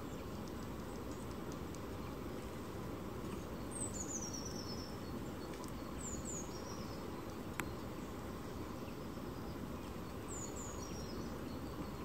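Steady outdoor background hiss and rumble, with high, thin calls of small songbirds: a short run of falling notes about four seconds in, and pairs of falling notes around six and ten seconds in. A single sharp click about seven and a half seconds in.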